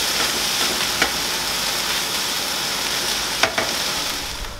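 Rabbit meat and vegetables sizzling steadily in a non-stick frying pan over a gas flame, stirred with a spatula that taps the pan twice, about a second in and near the end.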